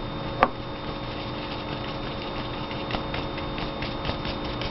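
A steady electrical hum with a few held tones, and a single sharp click about half a second in. Faint light ticks, like a paintbrush dabbing paint onto the surface, come and go.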